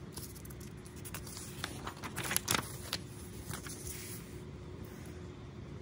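Handling noise: a scatter of soft clicks and rustles, busiest two to three seconds in, over a faint steady room hum.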